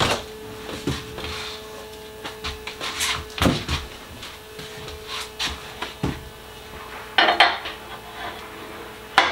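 Irregular knocks, clatter and rubbing as the wooden doors of a CNC router enclosure are opened and things inside it are handled, with the loudest knocks right at the start, around three seconds in and around seven seconds in. A steady hum runs underneath.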